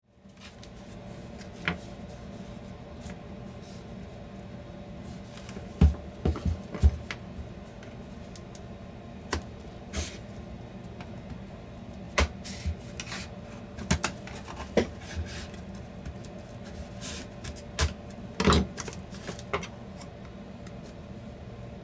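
Scattered clicks, taps and knocks of hard plastic parts and small tools being handled while a Bluetooth speaker is taken apart, over a steady low background hum. The loudest knocks come in a cluster about six seconds in and again about eighteen seconds in.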